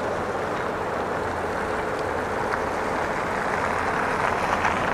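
Freight train rolling along the track: a steady rumble of wheels on rail with a low hum underneath, getting a little louder near the end with a few faint clanks.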